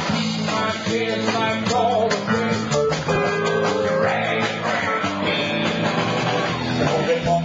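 Live blues-rock band playing loudly, with drums and electric guitar over steady low bass notes.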